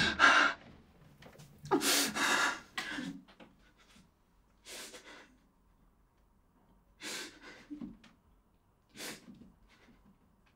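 A man gasping and breathing hard in pain: loud gasps at first, then separate breaths every second or two that grow quieter.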